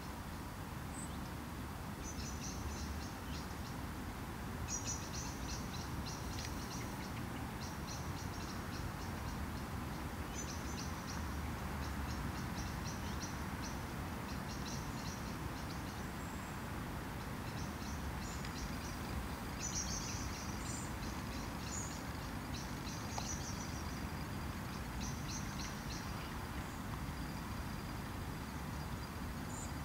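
Small birds chirping in short, rapid high trills that come back every few seconds over a steady low background rumble.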